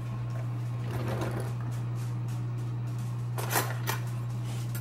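Dishwasher running, a steady low machine hum, loud and noisy. Two short clatters come about three and a half seconds in.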